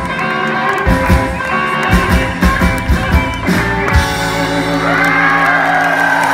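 Live rockabilly band of electric guitar, upright double bass and drums, loud. The drums hit until about four seconds in, then stop while the band holds a ringing chord, and the crowd starts whooping over it near the end.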